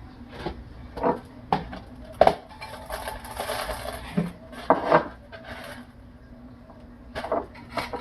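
LECA clay pebbles being handled and dropped into a small glass container: a series of sharp clinks and clicks, with a short rustling pour about halfway through.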